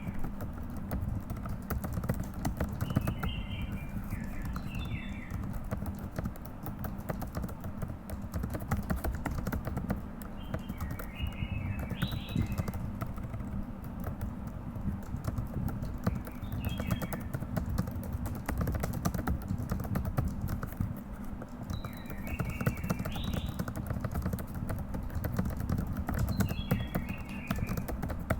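Fast, continuous typing on a computer keyboard, a dense run of keystroke clicks. A bird's short chirping phrases come in every five seconds or so.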